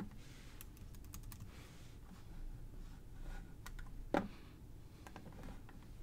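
Scattered clicks and taps of a computer keyboard and mouse, with one louder knock about four seconds in.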